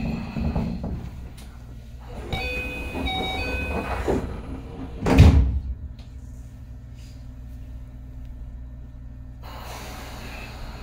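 Keio Line commuter train car settling at a station stop. A short chime of several stepped notes sounds while the sliding doors work, a loud thud comes about five seconds in, and then the standing car gives a low steady hum.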